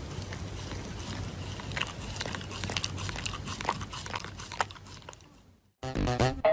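Shiba Inu chewing and biting a paper tissue: scattered soft crinkly clicks over a steady hiss. About six seconds in, loud electronic music with a strong beat starts abruptly.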